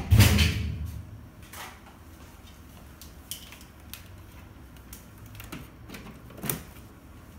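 Knocks and taps of equipment being handled on a workbench: one loud thump at the start, then a few faint clicks and a sharper tap about six and a half seconds in.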